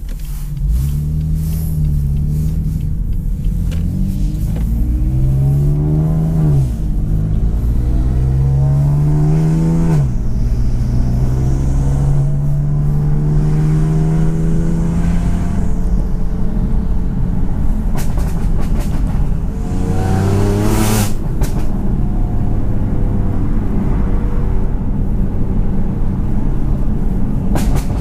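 Tuned BMW M4's twin-turbo straight-six with an Armytrix exhaust under hard acceleration: the engine note climbs and drops sharply at two quick upshifts, then makes a long steady pull. About two-thirds in the revs fall, with a brief burst of sharp cracks.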